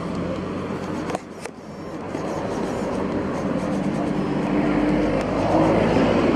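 A motor vehicle running on the road, its noise growing louder over a few seconds.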